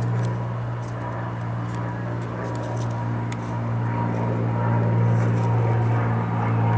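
Cessna 182S single-engine propeller airplane flying overhead, its six-cylinder Lycoming piston engine and propeller making a steady low drone that swells slightly in the second half.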